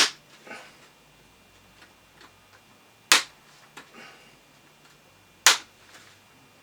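Plastic screen bezel clips of an Acer Aspire E5-551 laptop snapping loose as the bezel is pried off by fingernail. There are three sharp snaps about two and a half seconds apart, with faint plastic rubbing between them.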